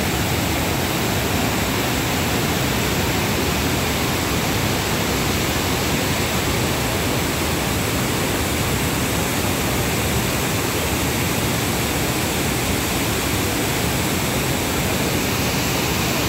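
Lake water pouring over a stepped concrete spillway: a loud, steady rush of falling, churning water with no change throughout.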